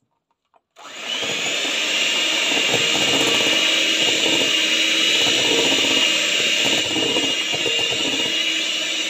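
Electric hand mixer switched on about a second in, its motor giving a steady high whine as the beaters whisk egg whites into meringue in a glass bowl.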